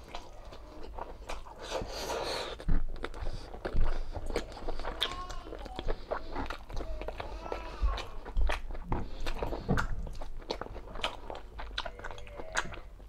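A person chewing soft braised pork humba and rice, with many short wet mouth clicks throughout.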